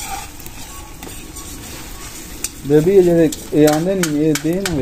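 Chicken karahi sizzling in a metal wok over a wood fire, with a metal ladle stirring and clicking against the pan. About halfway through, a man's loud, drawn-out voice comes in over the frying.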